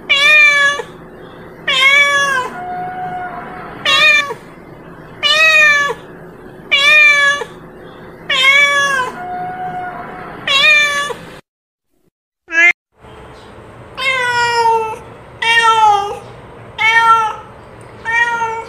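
A cat meowing over and over, about one meow every second and a half, each call dropping in pitch at its end. The meowing breaks off past the middle for a moment of silence. A somewhat lower-pitched run of meows then takes up at a similar pace.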